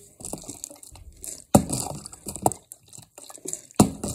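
Plastic water bottle, partly filled with water, being flipped and knocking down onto a hard surface: a sharp thud about a second and a half in, a lighter knock a second later and another sharp thud near the end, with water sloshing and plastic crinkling in between.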